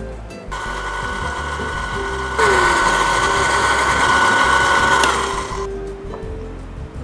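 Countertop electric blender running, blending avocado with whipped cream. It starts about half a second in, jumps louder about two seconds later, then winds down and stops about a second before the end.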